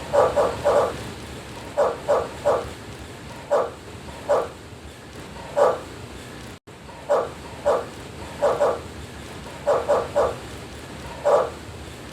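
A dog barking in quick runs of two to four short barks with pauses between them, over a steady background hiss.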